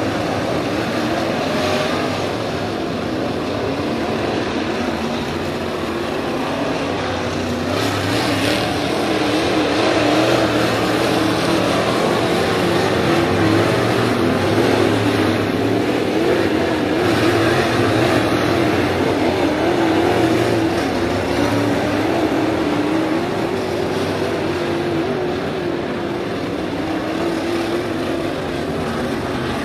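IMCA Modified dirt-track race cars' V8 engines running as the cars circle the track, a continuous drone whose pitch wavers up and down as they come on and off the throttle.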